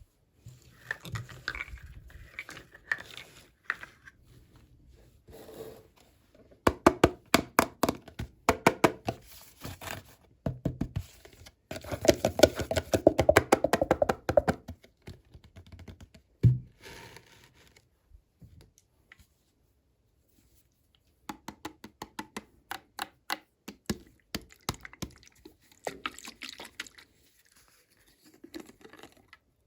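Hands opening and handling small plastic toy packaging: rapid runs of clicks, crinkling and tearing, with one dull thump partway through and a brief pause after it.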